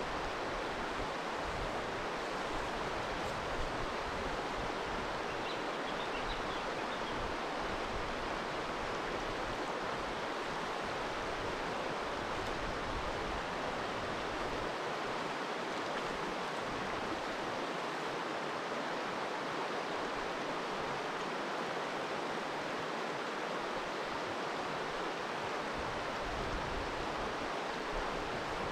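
Creek water running steadily over small rapids, an even rushing noise without a break.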